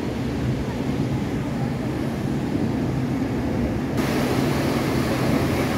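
Water rushing through a barrage sluice: a steady low rumble, with a brighter rushing hiss joining about four seconds in as the churning outflow gets louder.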